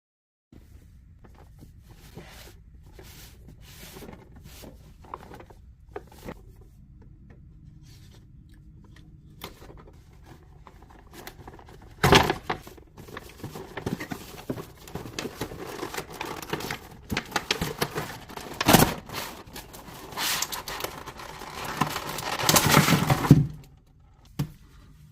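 Hands opening a figure's cardboard box and plastic packaging: scattered light taps and clicks at first, then louder crinkling, tearing and scraping with sharp snaps from about halfway through. It is busiest just before the end, then stops.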